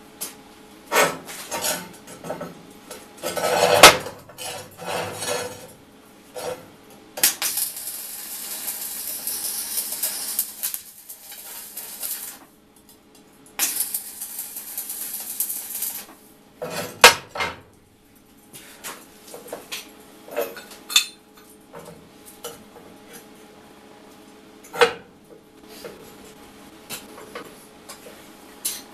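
Steel parts clanking and knocking on a steel workbench, the loudest knock about four seconds in. Twice in the middle comes a few seconds of steady hissing and crackling from electric arc welding.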